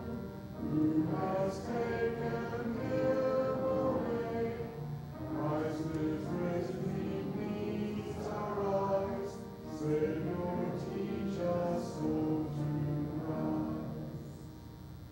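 Several voices singing a hymn verse together in sustained notes, the singing dying away near the end.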